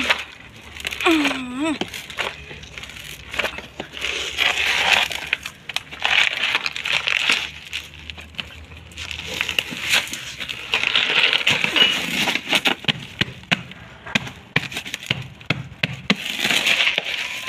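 Soil crumbling and shifting inside a blue plastic container as it is tipped over and worked loose, with repeated scraping, crunching and tapping on the plastic and on gravel. A brief pitched sound with a wavering pitch is heard about a second in.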